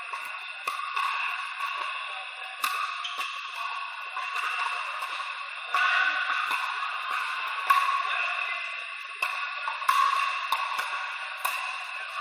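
Pickleball paddles hitting a hollow plastic ball: sharp pops at irregular intervals, each echoing in a large indoor court hall, over a steady din of the hall.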